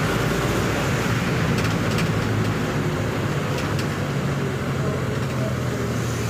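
A car driving on a wet road, heard from inside the cabin: a steady low engine and road drone under an even hiss of tyres on the wet surface. There are a few faint ticks.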